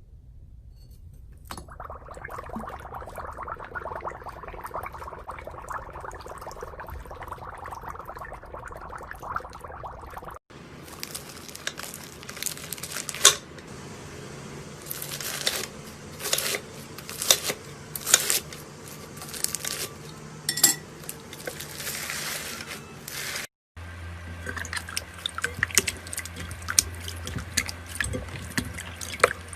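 Slime handled by hand. First comes a steady wet rush for about nine seconds. After a cut there is a run of sharp wet squishes and pops, and after another cut more crackly squishes over a low hum.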